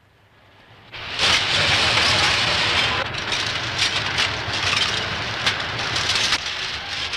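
Linotype hot-metal typesetting machinery running: a dense mechanical clatter with rapid clicks and ticks, fading up about a second in.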